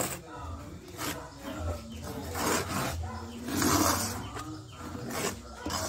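Metal spoon scraping and stirring a dry, granular sesame mixture around a metal bowl, in repeated scratchy strokes, loudest a little past the middle.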